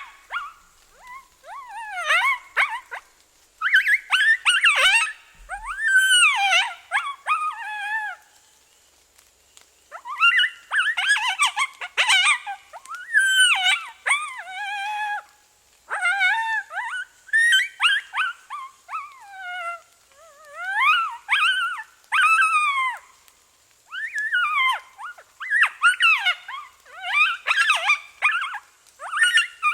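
Predator game call sounding high-pitched, wavering animal distress cries, in repeated bursts of a second or two with short pauses between them.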